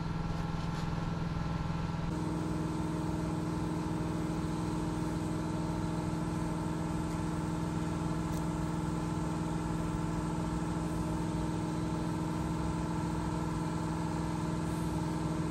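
Electric air compressor running steadily: an even, unchanging machine hum with a few fixed pitches.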